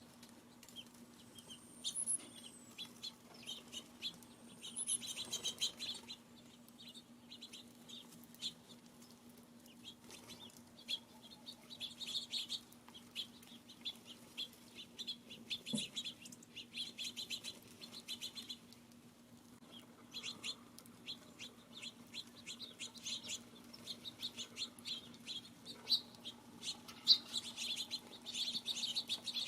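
Small songbirds chirping and chattering at a feeder, in bursts of many quick high chirps. Two thin, high whistles rise and fall early on, and there is a single sharp click about two-thirds of the way through.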